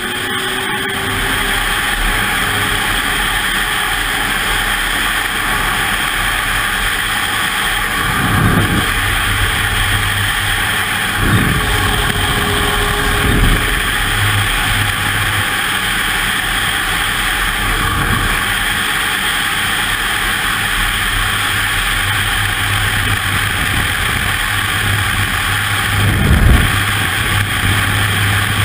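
Ski-Doo snowmobile engine running at speed, heard from the rider's seat with heavy wind rush over the helmet-mounted microphone. A few short low thuds come through, the strongest near the end.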